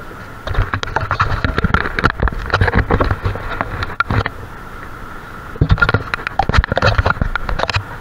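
Ride noise picked up by an action camera worn on a moving cyclist: two bouts of crackling, buffeting rumble, the first about three and a half seconds long and the second about two, over a faint steady high hum.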